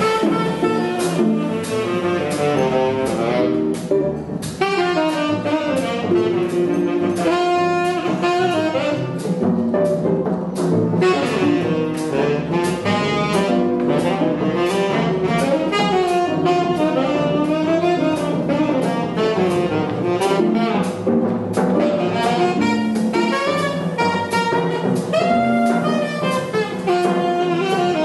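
Small jazz group playing live: a tenor saxophone plays a moving melodic line over archtop guitar chords, double bass and a drum kit keeping time on cymbals and drums.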